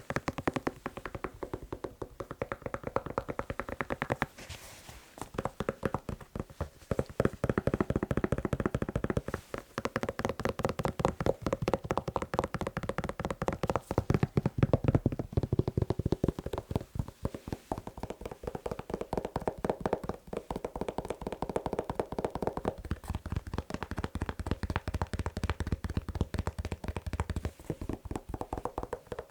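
Fast tapping on a shoe: a dense, rapid run of taps that stops briefly twice.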